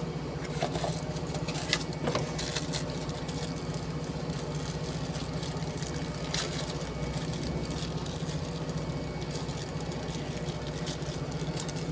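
An engine idling steadily, with a few sharp clicks and knocks scattered over it.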